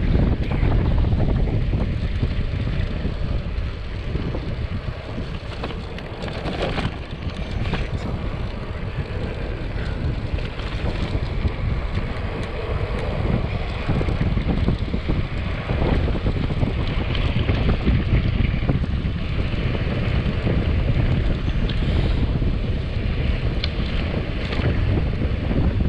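Steady wind noise buffeting the camera microphone of a road bike descending at speed, heaviest in the low rumble, easing a little about five seconds in before building again.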